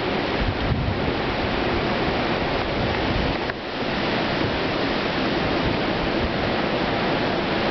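Hurricane wind blowing hard and steadily, a dense rushing roar like a jet overhead, with gusts buffeting the microphone; it eases for a moment about three and a half seconds in.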